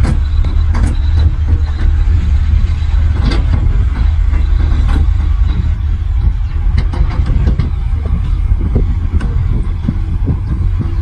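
Heavy earthmoving machine's diesel engine running steadily with a deep rumble, with scattered metallic clanks and knocks over it.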